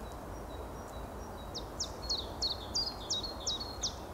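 A small songbird repeating a quick high phrase about three times a second, starting about a second and a half in: a steep falling note followed by a short lower note. Under it is a steady low background noise.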